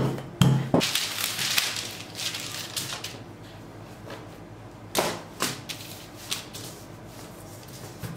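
Baking paper rustling and crinkling as a sheet is handled and spread out on a silicone baking mat, with a few sharp knocks on the worktop near the start and light taps later.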